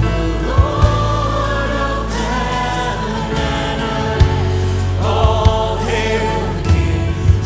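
Live Christian worship music: many voices singing a slow worship song together over a band, with held bass notes and a few sharp drum hits.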